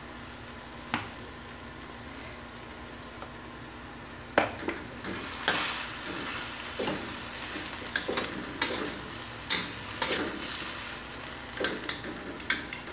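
Long beans and chillies sizzling in a stainless steel wok. From about four seconds in, a metal spatula stirs and scrapes them, knocking against the wok a dozen or so times, and the sizzle grows louder.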